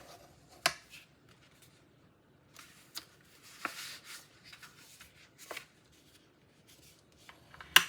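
Scored cardstock being handled and folded by hand: scattered light taps and clicks of card, a short paper rustle about four seconds in, and a sharp tap near the end.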